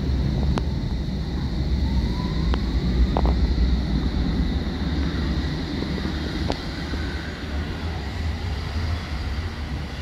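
London Underground S Stock train moving at the platform: a heavy low rumble with a faint rising traction-motor whine and a few sharp clicks, fading slowly toward the end.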